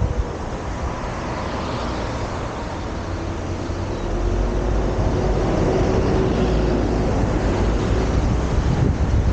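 Wind and road noise from a vehicle on the move, a steady rushing with a low rumble that gets louder about four seconds in.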